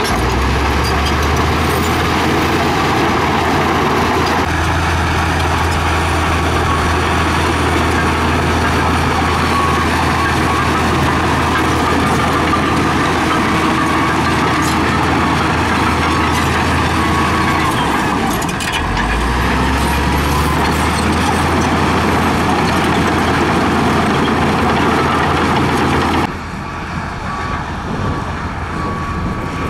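LiuGong B160C crawler dozer's diesel engine running steadily under load as it pushes dirt, dipping briefly about two-thirds of the way in. Near the end the sound drops suddenly to a quieter, more distant engine.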